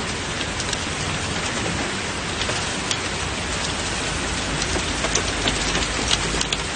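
Hurricane rain and wind: a steady, even hiss with scattered sharp taps of drops.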